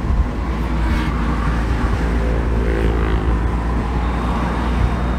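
Turbocharged four-cylinder engine of a Mitsubishi Lancer Evolution, heard from inside the cabin while driving, over a steady low rumble of engine and road noise. The engine note rises a little about two to three seconds in, and a thin high whine comes in near the end.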